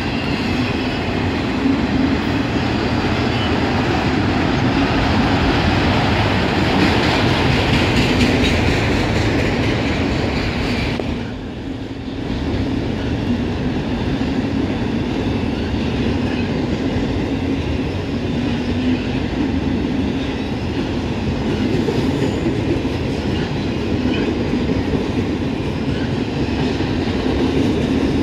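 Freight train of autorack cars rolling past, a steady loud sound of steel wheels running on the rails, briefly quieter about eleven seconds in.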